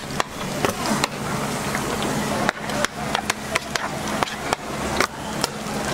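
A metal scraper knife knocking and cutting through a sheet of raw paste on a plastic cutting board: a string of sharp, irregular knocks, a few a second, over a steady low hum.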